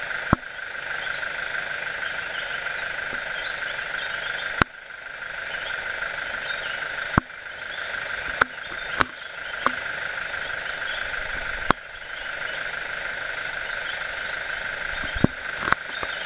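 Steady, shrill droning of rainforest insects such as cicadas. About nine sharp clicks cut through it at irregular intervals.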